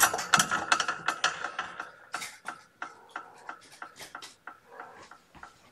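A rapid, irregular series of sharp clicks and taps from small hard objects being handled, thickest in the first two seconds and thinning out toward the end.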